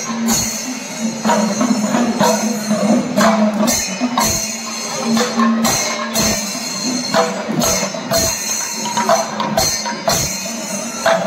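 Kerala temple festival percussion music: drum strokes at irregular intervals about a second apart with jingling cymbals, over a steady held low tone.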